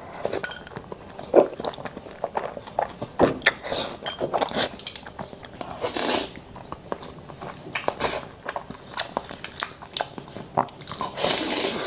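Close-miked eating sounds of someone working through a mouthful of beef tendon bibimbap: a run of wet chewing smacks and mouth clicks, with louder bursts about six seconds in and near the end.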